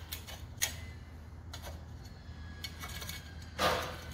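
Small metal palette knife scraping and clicking against the sides of a metal mini bundt pan while loosening baked financiers: a few light clicks, then a longer scrape near the end.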